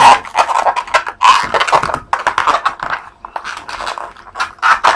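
Inflated latex modelling balloon being twisted and handled up close: a run of irregular squeaks and rubbing noises as the rubber is wrung into bubbles.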